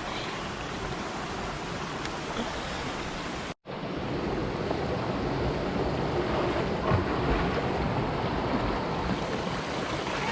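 Steady rushing water from the waterfall and creek, with a brief full break in the sound about three and a half seconds in.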